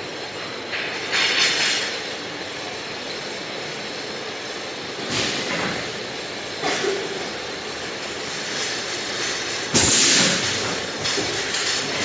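Pneumatic piston filling machine running, with sharp hisses of compressed air venting as its cylinders cycle, four times, the longest with a thump about ten seconds in, over a steady machine running noise.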